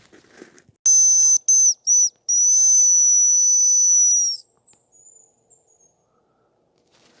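Hazel grouse call whistle blown close by, imitating the hazel grouse's thin high song: a long note, two short ones, then a two-second held note. A few faint higher whistles follow.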